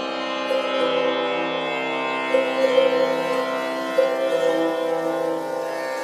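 Background music in an Indian classical style: a string instrument plays a slow melody over a steady drone.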